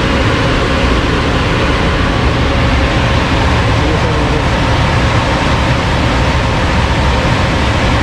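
Belt-driven centrifugal blower of a Carrier package air-conditioning unit running on test with its freshly fitted shaft and bearings: a steady rush of air over a low, even hum.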